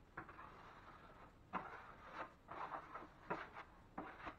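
Drywall knife scraping quickset hot mud along a ceiling corner bead in a series of short, quick strokes.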